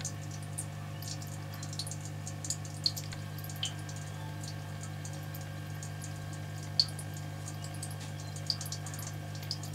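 Steady low hum of aquarium equipment with irregular small drips and plinks of water scattered over it, one sharper drip about seven seconds in.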